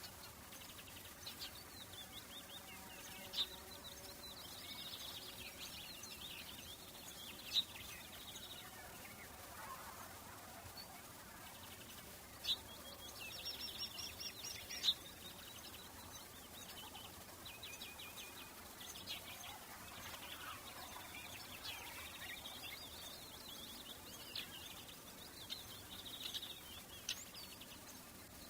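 Summer outdoor ambience of many small birds chirping and trilling over a faint steady background hiss, with a few sharp louder chirps standing out.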